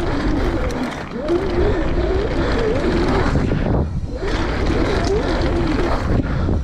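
Mountain bike descending a downhill trail at speed: steady wind rush and tyres rumbling and rattling over the dirt, with a brief lull about four seconds in.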